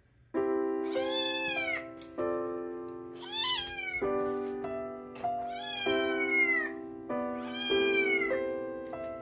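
Munchkin kitten meowing four times, high calls roughly two seconds apart, each rising and then falling in pitch. Background music of sustained chords plays underneath.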